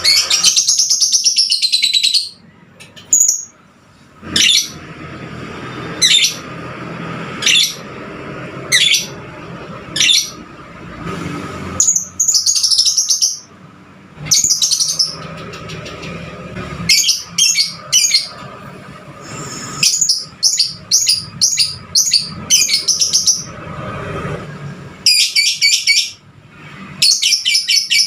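A fighter-type lovebird chirping: fast, high-pitched runs of chatter that break off into single sharp chirps and short bursts of calls.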